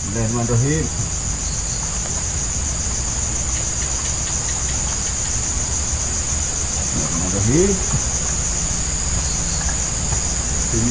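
Steady, high-pitched insect chorus with a fast, even pulse.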